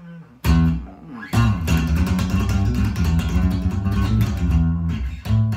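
Electric bass guitar played fingerstyle with no accompaniment: two single ringing notes, then from about a second and a half in a quick, continuous run of plucked notes, with a short break just before the end.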